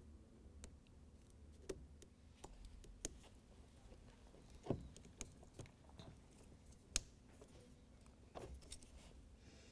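Faint clicks and ticks of pliers squeezing a plastic insulation-displacement splice connector shut on two trailer wires, the metal blade cutting through the insulation to join them. Two sharper clicks stand out, about two seconds apart past the middle.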